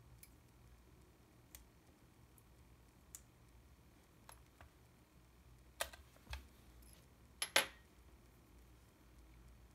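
Light plastic clicks and taps from handling a Yashica T4 compact film camera. A few faint ticks come first, then a cluster of louder clicks and a soft knock about six to seven and a half seconds in, as the film back door is shut and the camera is turned over.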